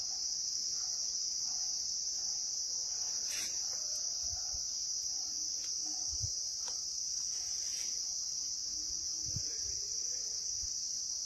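A steady, high-pitched chorus of crickets chirring without a break. A few faint low thumps come in the second half.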